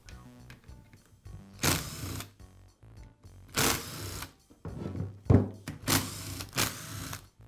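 Cordless electric screwdriver running in several short bursts of about half a second each, backing out the screws that hold the polisher's gear head.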